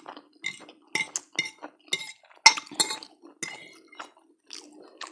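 Metal fork clinking and scraping against a ceramic plate while twirling spaghetti: a string of sharp clinks with a short ring, the loudest about two and a half seconds in.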